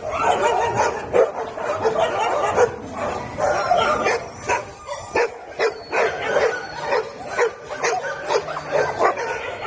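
Several dogs barking and yipping, their calls overlapping. From about halfway through, one bark repeats steadily, roughly once or twice a second.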